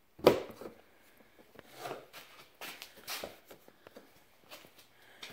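A single sharp plastic clack about a quarter second in as the mower bagger's lid is latched shut, followed by scattered softer knocks and rustling from handling, including a small plastic parts bag being picked up.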